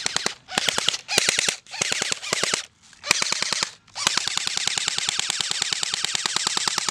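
Full-auto BB gun firing rapid bursts of shots, with its rate of fire turned up by an adjustment on the gun. Several short bursts come first, then one long burst of about three seconds near the end.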